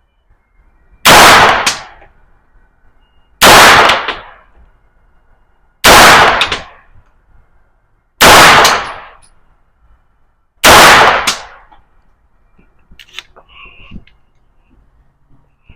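Five shots from an AR9 9mm pistol-calibre carbine, fired at a slow even pace about every two and a half seconds, each very loud with a short ringing tail. A few faint clicks and clanks of gun handling come near the end.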